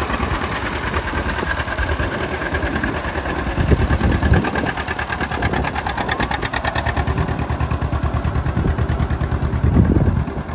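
John Deere AR tractor's two-cylinder engine running with a steady, even exhaust beat as the tractor pulls away under way, with the loudness swelling briefly twice.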